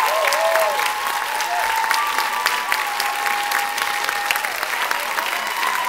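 Theatre audience applauding: dense, steady clapping, with long held high calls from the crowd sounding over it.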